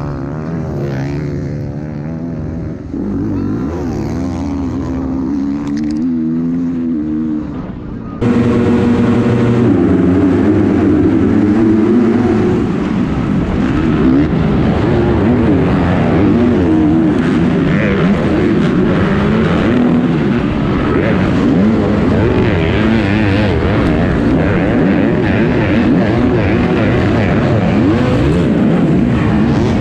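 Motocross bike engines revving up and down, heard from an onboard camera. About eight seconds in, the sound turns abruptly louder into a pack of bikes racing together, many engines revving at once.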